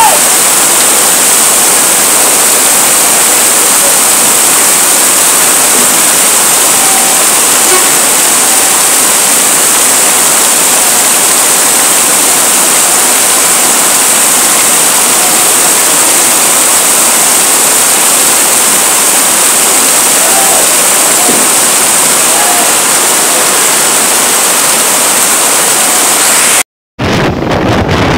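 Heavy rain pouring down in a steady, loud hiss. About a second before the end it breaks off and gives way to wind buffeting the microphone.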